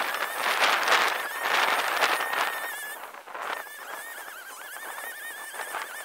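Shindaiwa 21 cc two-stroke brushcutter with a steel weed blade running at high revs while cutting weeds. Its engine note wavers up and down, with louder rushing noise during the first three seconds.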